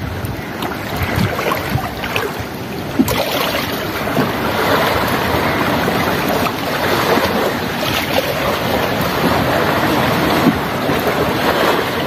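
Sea surf with wind buffeting the microphone: a steady rushing noise with gusty low swells, getting a little fuller about three seconds in.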